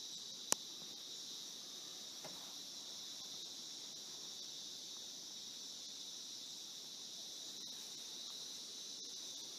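Steady, continuous high-pitched chorus of insects chirring in the forest, with one short sharp click about half a second in.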